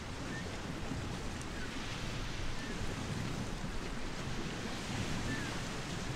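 Ocean surf: a steady rush of waves washing and breaking.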